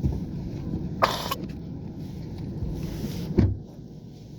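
Steady low rumble inside a car, with a short rattling click about a second in and a low thump about three and a half seconds in, typical of a car door being worked.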